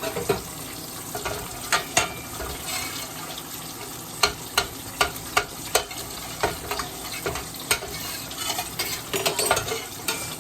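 Battered chicken tenders frying: a steady sizzle broken by many sharp pops and crackles.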